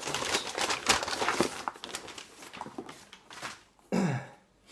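Brown packing paper crinkling and rustling as it is pulled out of a cardboard shipping box, thinning out after about two seconds. Near the end, a short vocal sound from a man, falling in pitch.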